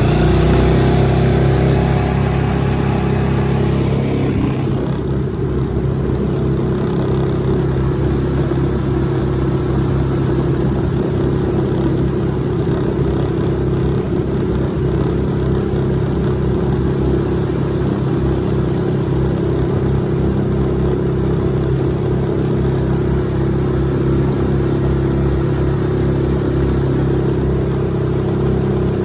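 Suzuki DF6A 6 hp single-cylinder four-stroke outboard running steadily at low throttle under way, held below half throttle during its break-in. A high hiss over the motor in the first few seconds drops away about four seconds in.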